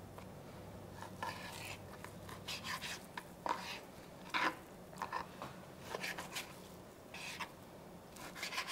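Chef's knife cutting raw beef shoulder on a plastic cutting board: soft, irregular cuts and light taps as the blade reaches the board, with squishy handling of the meat.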